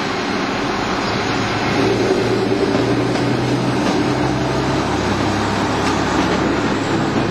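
ALn 668 diesel railcars running through a station with a steady low engine drone and rail rumble. The engine note swells about two seconds in, as the railcar works under load and puts out exhaust smoke.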